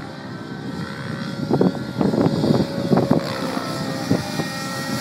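Nitro-engined T-Rex 700N RC helicopter in the air during an inverted autorotation attempt: its engine gives a steady tone under rotor noise, getting louder as it descends. Irregular low thumps come in from about a second and a half in.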